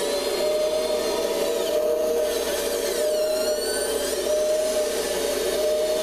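Electric motors and gear trains of a Kabolite 970 all-electric RC excavator whining as it works, a steady drone underneath and higher whines rising and falling in pitch as the arm functions speed up and slow down.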